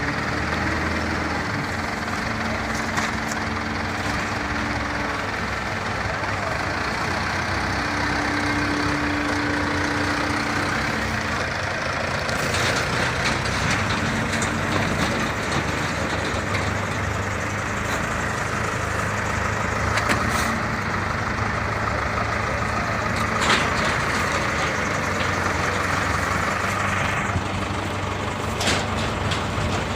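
Automatic horizontal baler running: a steady machine drone with a hum that comes and goes in the first half, and a few sharp knocks.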